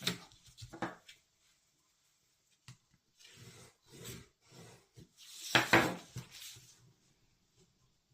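Cardstock being handled and folded by hand: short intermittent rustles and rubbing, the loudest a rustling scrape of about a second, about two-thirds of the way in.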